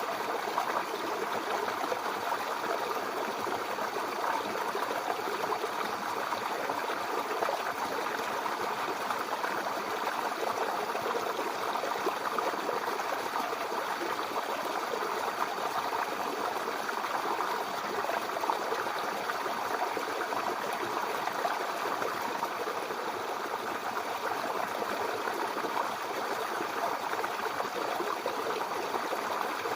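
Mountain river flowing steadily over rocks, a continuous even rush of water with no breaks.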